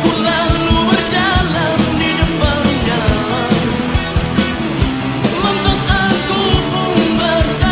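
Rock song: a lead vocal singing over a steady drum beat and full band backing.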